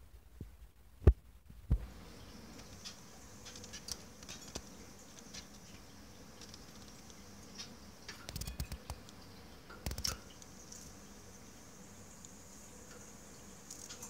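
Light taps and knocks of a small finch hopping and landing on a wire birdcage. The sharpest knock comes about a second in, a quick cluster of taps around eight and a half seconds, and another knock near ten seconds, over a faint steady high hiss.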